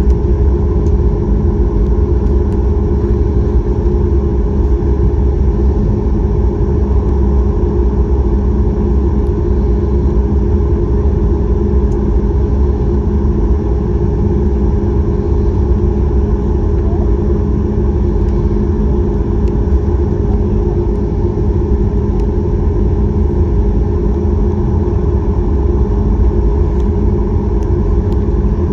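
Steady cabin rumble of a Boeing 737 MAX 8, heard from inside: CFM LEAP-1B engines running at steady power with airflow noise, with a low droning hum over it that does not change.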